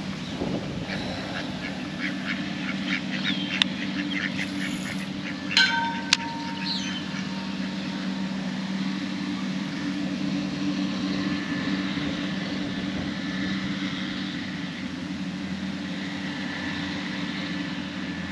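Outdoor pond ambience with a steady low hum and scattered light ticks. Short bird calls cut through, the loudest a brief nasal call about six seconds in.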